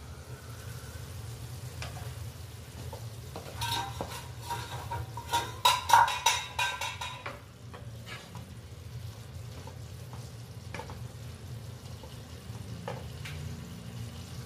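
A cooking utensil stirring and scraping in a pan of thick prawn curry. There is a dense run of clattering strokes a few seconds in, loudest about halfway, then a few light taps, all over a steady low hum.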